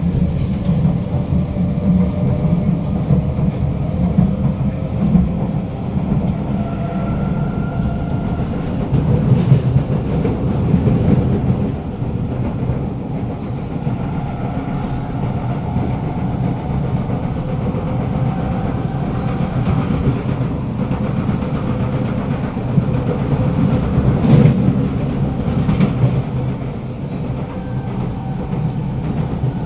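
Inside a Kawasaki Nippon Sharyo C751B metro car running at speed: wheel-on-rail rumble and clickety-clack with several motor whine tones that drift in pitch, and a few sharp knocks, the loudest about 24 seconds in. The car is one the uploader reports as having motor problems and worsening flat wheels.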